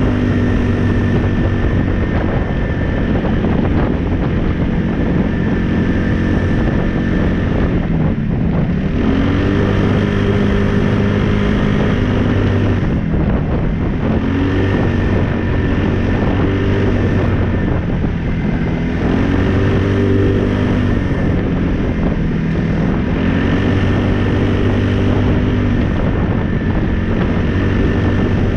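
2015 Polaris Ace 570 SP's single-cylinder engine running under way, with wind on the microphone. The revs dip and climb again four times, as the throttle eases off and comes back on.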